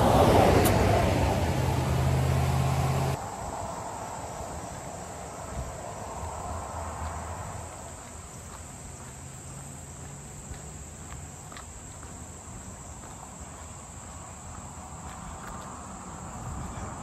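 Insects trilling steadily in a high-pitched chorus. Over the first three seconds a vehicle engine hums louder underneath, then cuts off abruptly.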